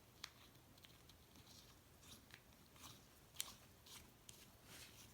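Faint, scattered small clicks and scrapes of a battery cap being screwed back into a Sig Sauer Romeo5 red dot sight with a small tool.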